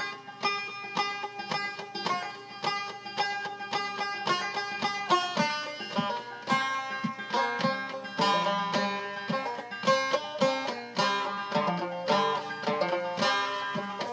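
Banjo played clawhammer style: a steady, rhythmic run of quick plucked and brushed notes, starting abruptly.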